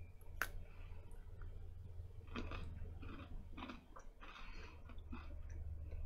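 A person biting into a cotton candy Oreo sandwich cookie with a sharp snap about half a second in, then chewing it with irregular crunchy bites from about two seconds in.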